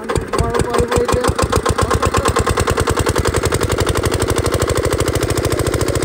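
Single-cylinder engine of a field water-pump set catching and running, its firing beats quickening over the first second or two and then settling into a steady, fast, even beat.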